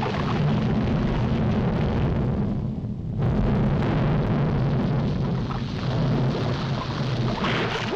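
Volcanic eruption sound effect on a 1940s animated cartoon soundtrack: a continuous, loud, deep noise that dips briefly about three seconds in.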